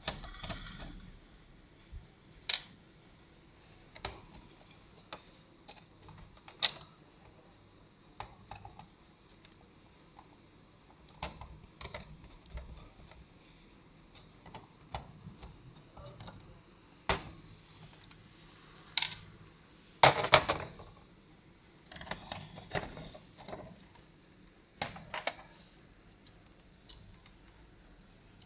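Clicks, taps and knocks of tools and parts as the main board of an LED TV is taken out, irregular and scattered, with the loudest clatter about twenty seconds in.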